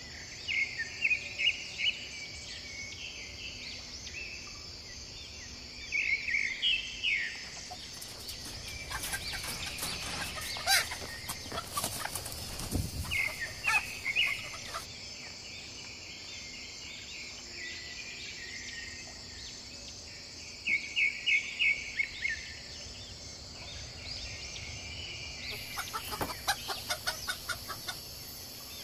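A chicken clucking and squawking in several short runs of quick calls, over a steady high insect drone. Footsteps and rustling on dry leaf litter crackle in between.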